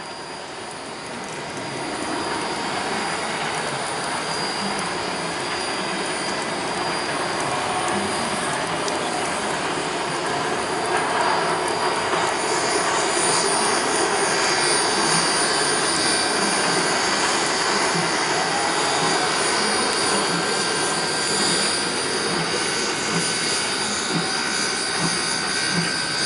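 A steady rushing noise from a steam train running, building about two seconds in and then holding, with faint thin high tones above it.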